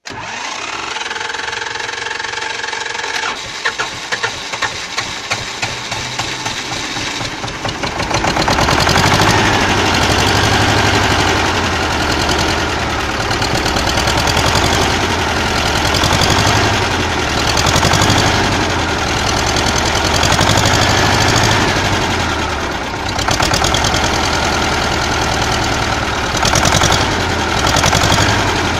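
A T-25 tractor's two-cylinder air-cooled diesel is cold-started in winter after preheating. The starter turns it with a steady whine, then it fires irregularly with sharp knocks for a few seconds. About eight seconds in it catches and runs loudly, its speed swelling and falling every couple of seconds.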